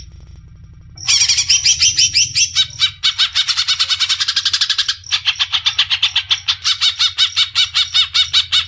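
Cucak ijo (green leafbird) singing a fast, chattering song of rapid high notes, about a dozen a second, starting about a second in and broken by short pauses near three and five seconds in.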